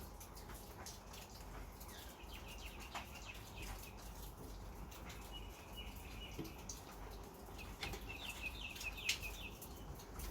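Small birds chirping in short runs of quick high notes, with scattered light clicks and knocks from metal parts and tools being handled.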